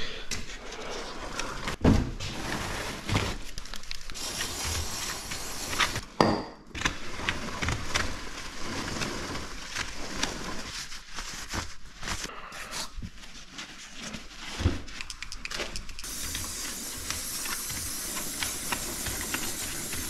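Aerosol chain lube spraying onto a motorcycle drive chain in long hissing bursts, about four seconds in and again near the end, with a few knocks and clatter from handling in between.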